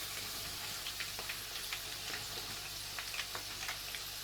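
Batter-coated chicken pakora pieces deep-frying in hot oil: a steady sizzle with many small scattered pops.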